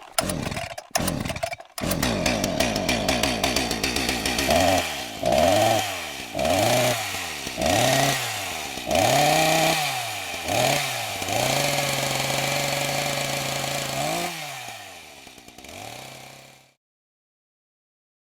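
Chainsaw engine revving: a few short choppy bursts, then the saw revved up and down about seven times, holding a high steady rev for a couple of seconds before dropping and fading out near the end.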